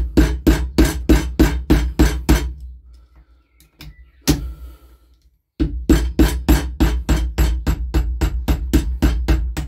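Rapid hammer blows, about four a second, driving the crankshaft out of a McCulloch GBV 345's two-stroke crankcase, each blow a heavy knock that thuds through the workbench. The hammering stops for about three seconds, with a single blow in the gap, then runs on steadily.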